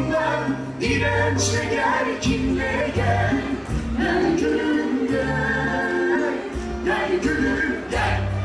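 Song with several voices singing together over a bass line that moves every second or so.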